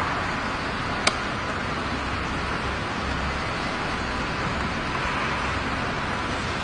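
Steady background hiss with a faint low hum, broken once by a single sharp click about a second in.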